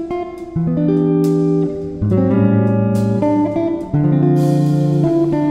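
Background music: a guitar playing plucked notes over lower bass notes, changing every half second to a second.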